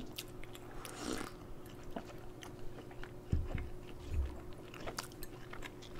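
Quiet close-miked eating and drinking sounds: soft mouth clicks of chewing samsa, with a few low gulps from sips of tea and coffee.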